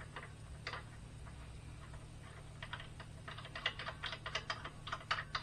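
Light, irregular metallic clicks and ticks of a steel brake-line adapter fitting being threaded by hand into the aluminium port of an R35 GTR master cylinder, its burred thread just filed. There are a few scattered clicks at first, then a quick run of them from about halfway through.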